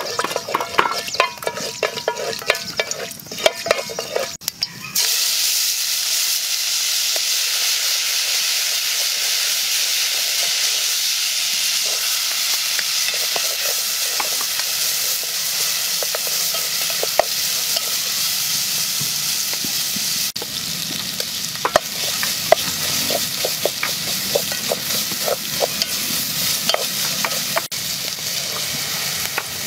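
A wooden spatula scrapes and clicks around an aluminium pot as black peppercorns are stirred in oil. About five seconds in, a steady sizzle of sliced red onions frying in hot oil takes over, with the spatula scraping and ticking against the pot now and then.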